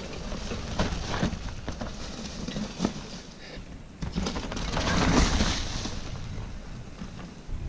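Mountain bikes riding a dry dirt trail: tyres crunching over loose dirt and leaf litter, with rattling from the bikes and wind buffeting the microphone. The sound gets suddenly louder about four seconds in.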